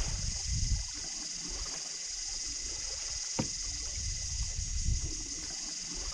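Kayak being paddled on a slow river, with wind buffeting the microphone over a steady high hiss and a single sharp click about three and a half seconds in.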